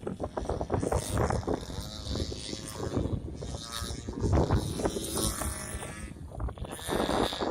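A small 70cc engine running, its pitch rising and falling as the speed changes, with strong wind buffeting the microphone.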